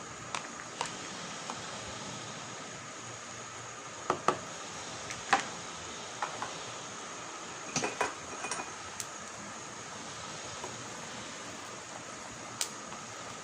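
Scattered sharp clinks of a utensil against a cooking pot or dish, about a dozen over the stretch, the loudest clustered about four to five seconds in and again about eight seconds in, over a steady hiss.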